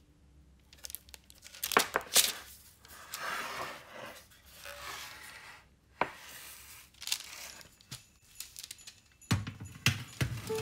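Something being torn and crinkled by hand, with scattered sharp clicks and knocks; the loudest snaps come a little under two seconds in.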